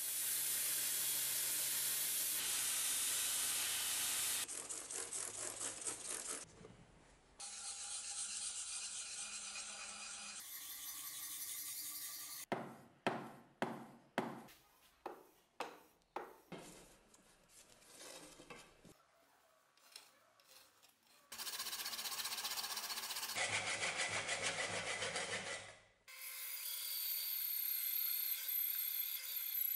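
A run of short workshop clips: a belt grinder grinding the steel axe head, then a series of quick separate strokes of a hand file on the axe, then a bandsaw running with a steady whine as it cuts an ash handle blank.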